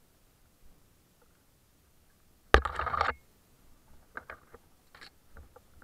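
Mountain bike being pushed over rocky ground: one loud rattling clatter lasting under a second about halfway through, with scattered light clicks and knocks before and after.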